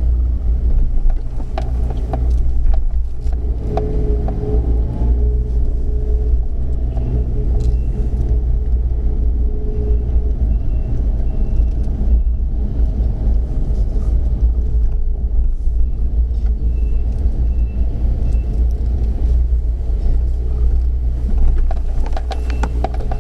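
Steady low engine rumble that runs without a break, with a faint steady tone over it for a few seconds about a quarter of the way in.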